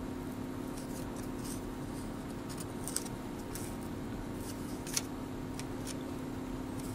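Cardboard trading cards being handled and slid through a hand-held stack: faint scattered ticks and brief rubbing sounds, with a slightly sharper tick about three seconds and again about five seconds in. A steady low hum runs underneath.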